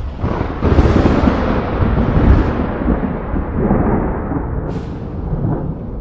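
Thunder rolling: a long, deep rumble that swells about a second in, peaks again around two seconds, then eases off, with a brief crackle near the end.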